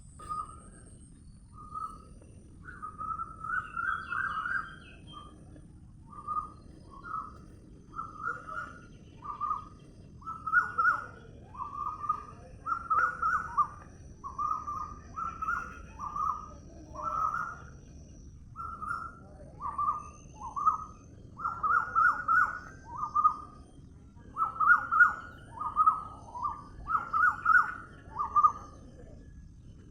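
A bird calling over and over: short mid-pitched notes about one a second, often in quick runs of two or three, over a faint steady low hiss.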